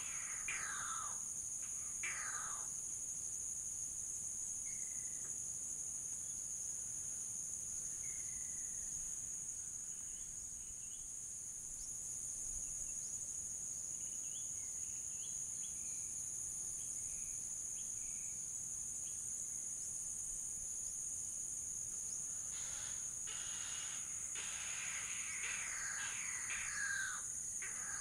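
Steady high-pitched drone of crickets and cicadas, with birds calling over it. A quick series of falling calls comes in the first two seconds and again over the last five seconds, with a few faint chirps in between.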